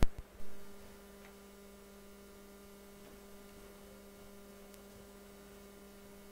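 Steady electrical mains hum, two low tones held without change. It follows two sharp pops in the first half second.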